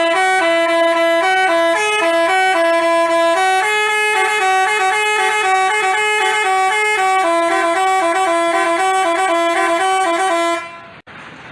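Basuri telolet bus horn playing a tune: a quick run of stepped, held notes, two tones sounding together. It stops about ten and a half seconds in.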